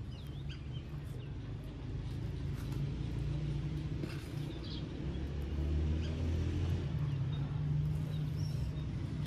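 A steady low rumble that swells slightly in the middle, with a few faint, short, high chirps.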